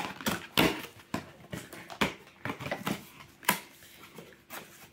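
Plastic packaging crinkling and rustling in irregular bursts as it is handled and pulled out of a box, with a few louder crackles.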